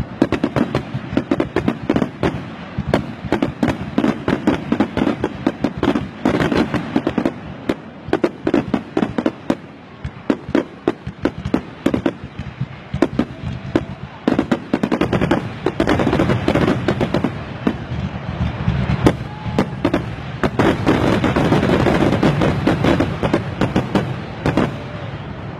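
Fireworks finale: a rapid barrage of shells bursting one after another, with sharp bangs and crackling, thickening into a dense, almost continuous crackle in the second half.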